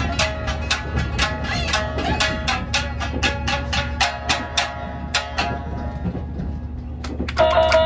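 Two Tsugaru shamisen played together, their strings struck sharply with the plectrum at about three to four notes a second, each note ringing briefly. The notes thin out past the middle, then louder, denser playing with a held tone comes in near the end.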